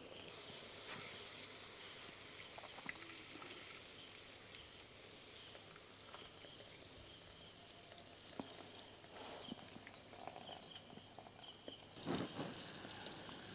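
Crickets chirping faintly and steadily in pulsing trills, with a few small clicks. About twelve seconds in there is a short rustle as raw rice is poured into a bowl.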